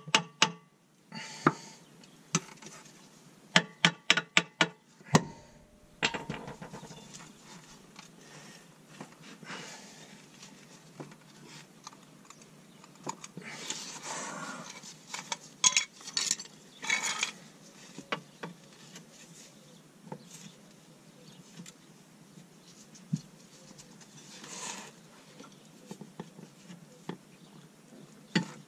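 Sharp metallic taps ringing off a Subaru Legacy's transmission housing, a quick run of about six taps about four seconds in, as the stuck housing over the center differential is tapped loose. Then quieter scraping and shuffling of metal parts and gloved hands as the housing is pulled and wedged, with a few louder scrapes around the middle.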